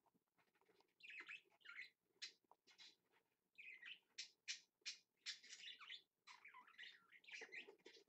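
Budgerigar chicks chirping: a quick run of short, high calls starting about a second in.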